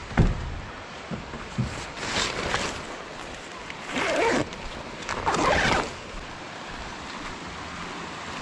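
A nylon tent door being handled and opened, in three short scraping, rustling bursts, after a sharp knock at the very start. The steady rush of a shallow rocky stream runs underneath.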